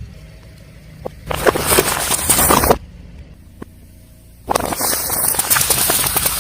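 A car runs with a low engine hum while its tyre crushes objects in two stretches of loud crunching and crackling, the first about a second in and the second starting past the middle.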